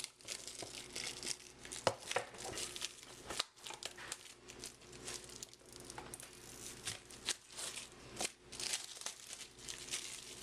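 Wrapping of a sealed baseball card box being torn and crinkled by hand as it is opened, a string of irregular crackles and small snaps.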